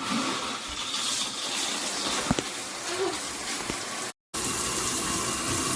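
Water spraying from a shower head: a steady rushing hiss that cuts out for a moment about four seconds in, then carries on.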